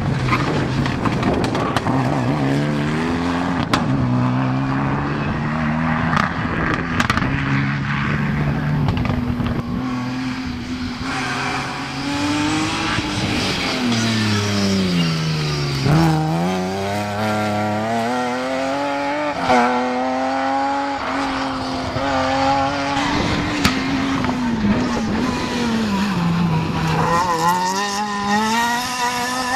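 Rally car engines driven hard, one car after another, revving up through the gears in stepped rises of pitch. In the middle one engine's pitch falls steeply, as on braking and downshifting, then climbs again under acceleration.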